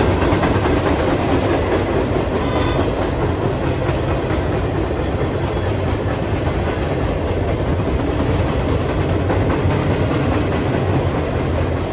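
Freight train cars rolling past, a steady rumble of steel wheels on the rails.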